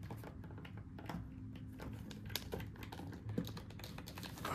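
Irregular small clicks and taps of a plastic Hiya Toys Ghidorah action figure's wing joints and parts being handled and folded, over a faint steady low hum.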